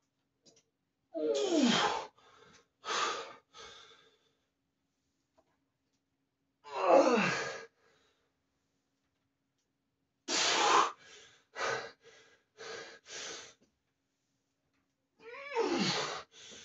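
A man's straining groans and hard exhalations while doing heavy barbell back squats: about four loud groans that fall in pitch, spaced several seconds apart, each followed by a few short, sharp breaths.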